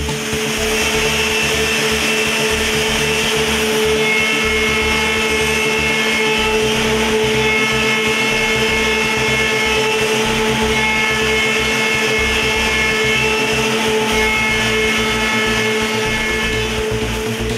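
Multi-spindle CNC woodworking machining centre running, its spindles machining a wooden part: a steady whine under a hiss, with higher-pitched tones coming and going every few seconds as the cutters work.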